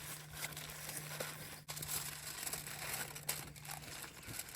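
Rustling and crinkling of something being handled, with a few light clicks and a faint steady low hum underneath.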